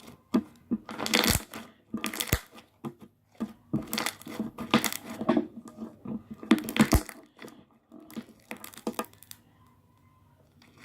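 Slime being squished and pressed by hand, making irregular bursts of squelching and clicking noise that stop shortly before the end.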